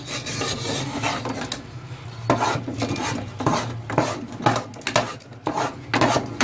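Long steel spatula scraping and turning thick chana dal paste against the sides and bottom of an aluminium pot, in repeated strokes about twice a second: the dal is being roasted (bhuna) in ghee for halwa.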